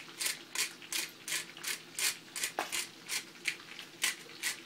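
Hand-twisted pepper grinder cracking black peppercorns, a quick rasping crunch at each twist, about three strokes a second.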